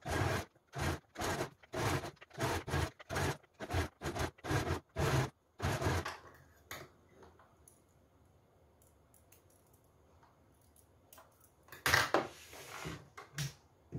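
Marvela domestic sewing machine stitching slowly, in short even strokes about two to three times a second, stopping about six seconds in. A brief burst of handling noise follows near the end.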